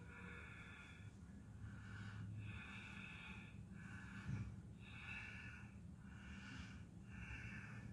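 Faint breathing in and out through the nose of a man holding a seated yoga spinal twist, short breaths alternating about once a second. A soft thump about halfway through.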